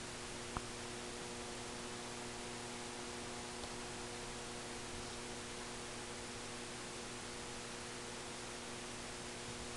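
Steady hiss with a faint, even electrical hum underneath, and one small click about half a second in.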